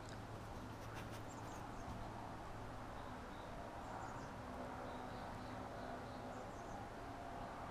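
Faint outdoor ambience: a low steady hum and background noise, with scattered short high chirps of small birds, and a few quick clicks about a second in.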